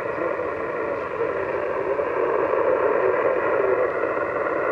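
Yaesu FT-991A transceiver's speaker giving steady receiver hiss of 20-meter band noise on upper sideband, cut off sharply above the voice range by the sideband filter. The operator hears a very weak station buried in this noise.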